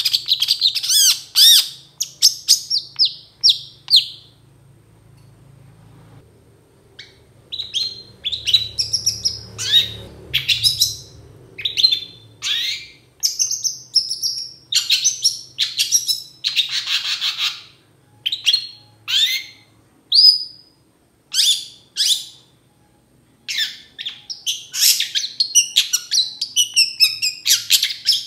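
Long-tailed shrike (cendet) singing in a run of short, sharp, harsh notes, pausing briefly about four seconds in, then resuming with a faster, busier twittering run near the end.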